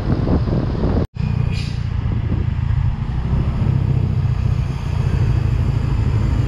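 Motorcycle riding noise: wind buffeting the microphone, cut by a brief total dropout about a second in, then a steady low rumble of engine and road.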